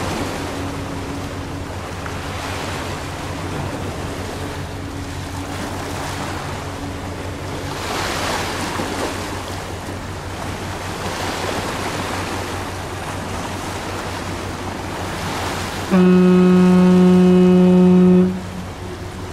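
A ship's horn sounds one long, steady blast of about two seconds, starting about sixteen seconds in. Before it there is only a steady wash of wind and harbour water.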